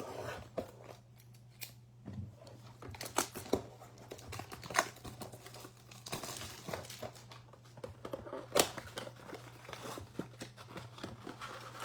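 A Topps Chrome blaster box being opened by hand: its packaging torn and crinkled, with scattered sharp clicks and taps as the packs are handled, over a steady low hum.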